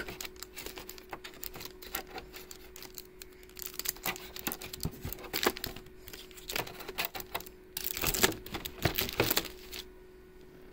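Clear plastic zip-lock bags of board-game pieces crinkling as they are handled, with light clicks of the plastic dice and tokens inside, in irregular spurts that are loudest about eight seconds in.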